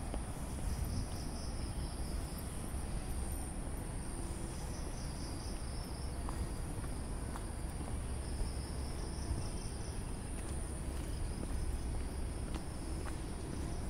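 Evening insect chorus, crickets chirring: a steady high-pitched trill with a second, pulsing chirp that comes and goes, over a continuous low rumble.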